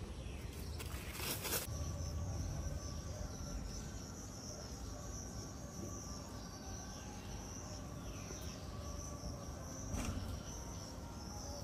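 Insects trilling in a steady, high, even drone over a low outdoor rumble, with a short click about a second and a half in and another near the end.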